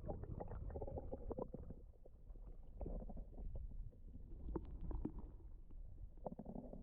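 Quiet low gurgling and lapping of river water around a parked kayak, with scattered small irregular ticks and knocks.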